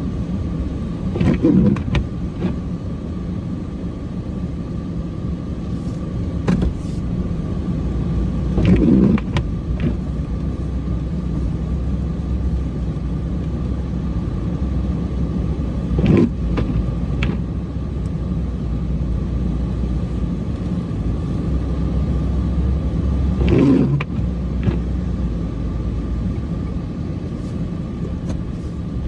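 Cummins diesel engine of a plow truck running steadily while plowing snow, with four brief louder surges spaced about seven seconds apart.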